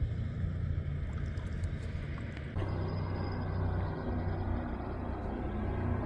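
Steady low hum of a boat motor running on the water, over a hiss of wind and water. The background changes abruptly about two and a half seconds in.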